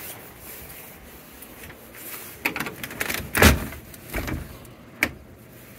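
A glass-paned cabin door being opened: a run of scraping and rattling with a heavy thump about three and a half seconds in, then a single sharp click near the end.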